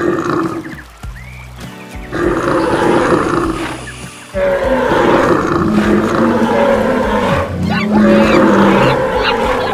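Animal sound effects for a stampede: roars and calls mixed with music. The mix gets louder about four seconds in.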